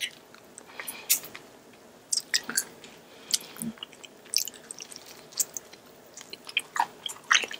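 A person chewing and biting into sticky, sauced Korean fried chicken, heard as an irregular string of short, sharp clicks and smacks.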